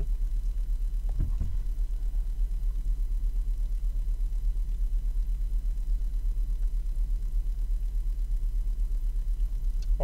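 2008 VW Rabbit's 2.5-litre five-cylinder engine idling steadily, fully warm, at a slightly high idle of about 1000 rpm. The car stalls intermittently when hot, which the mechanic puts down to a failing crankshaft (engine speed) sensor.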